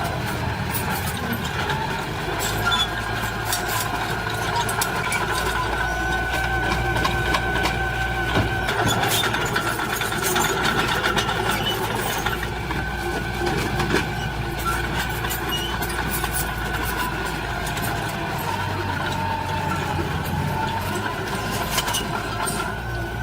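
Diesel engine of heavy earthmoving machinery running steadily, with a high steady whine and scattered clanks.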